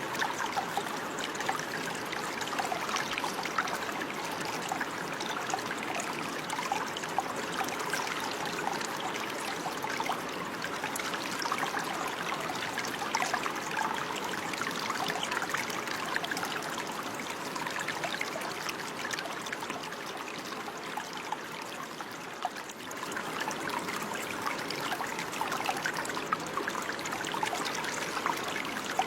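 Running water: a small stream babbling and trickling steadily, with many little splashes.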